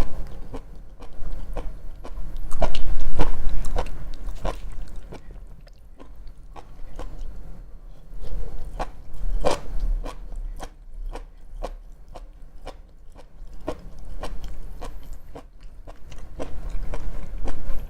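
Close-miked chewing of sushi, with wet mouth smacks, lip clicks and bites coming in uneven clusters.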